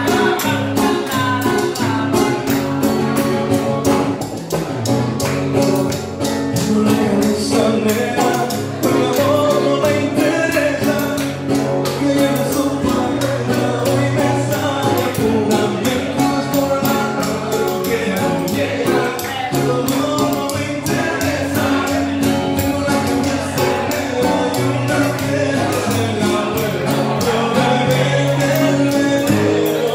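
Live acoustic music: a man singing into a microphone with an acoustic guitar played alongside, in a steady rhythm.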